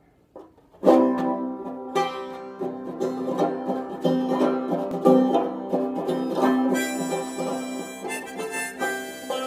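Banjo strummed in a folk tune, starting about a second in after a single lone pluck, with a harmonica from a neck rack joining in during the second half.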